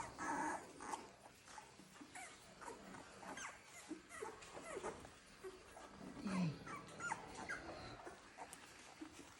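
Cocker spaniel puppy whimpering, with short, scattered high squeaks, a louder burst at the start and a lower falling whine about six seconds in.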